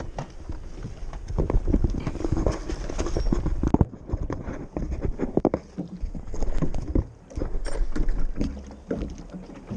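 Irregular knocks, bumps and clatter on a metal boat's deck and hull as a caught golden dorado is handled out of the landing net.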